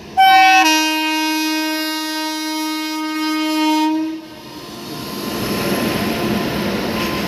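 Locomotive horn: a brief higher note, then a long lower blast of about three and a half seconds. After it, the rising rumble of an express train approaching at speed.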